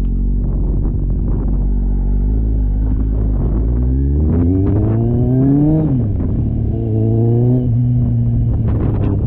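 Motorcycle engine pulling up through the revs, dropping sharply at a gear change about six seconds in, then pulling again and settling. Under it runs a heavy, low wind rumble buffeting the GoPro Hero 9's microphone.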